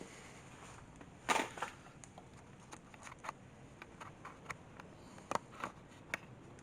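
Fire crackling in a wood-burning stove as a cardboard box of sawdust burns on the embers: scattered sharp pops at irregular intervals, with a louder burst about a second in.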